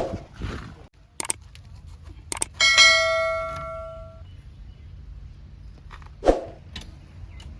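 A single bell-like metallic strike about three seconds in, ringing out and dying away over about a second and a half, over a low steady rumble. A few short knocks, the loudest a thud near the end.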